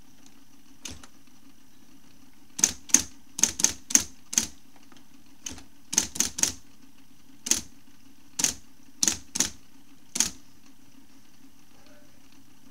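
IBM Model C electric typewriter typing: about fifteen sharp key strikes in irregular bursts, stopping about ten seconds in, over the steady hum of its running motor.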